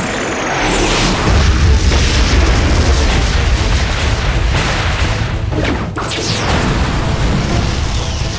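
Battle sound effects: a deep, rumbling explosion-like boom that swells about a second in and goes on for several seconds, with a few sweeping whooshes near the end.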